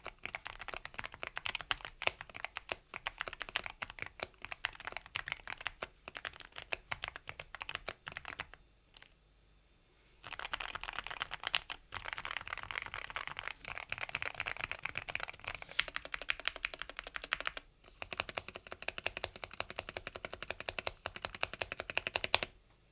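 Fast typing on a Yunzii AL68 mechanical keyboard: a dense run of key clicks and clacks, with a pause of about a second and a half partway through and another short break later.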